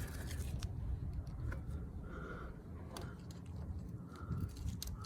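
Handling noise as a camera is shifted and set in place: low rubbing with a few light clicks and knocks.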